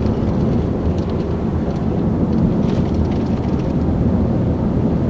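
Steady low rumble of a car's tyres and engine, heard inside the cabin of a car driving along a highway.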